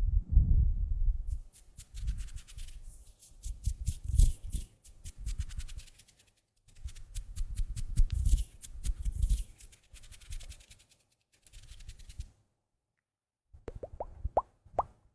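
Earmuffs rubbed and pressed against the microphone: muffled low swishing rumbles with fine crackling, swelling and fading in slow uneven strokes. After a brief pause near the end come a few short rising squeaks.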